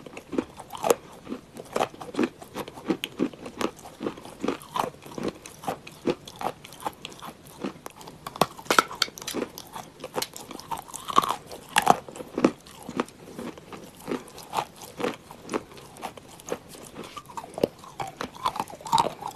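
Crisp crunching bites and chewing of a dry chunk of Uralochka edible clay, an irregular run of sharp crunches a few times a second.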